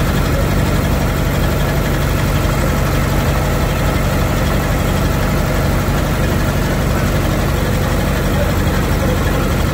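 Diesel engines of a purse-seine fishing boat running at a steady idle, a low even drone with no change in speed.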